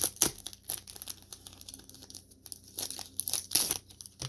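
Packaging crinkling and tearing in irregular bursts as a cleaning cloth is unwrapped from a ratchet's box, loudest at the start and again between about three and four seconds in.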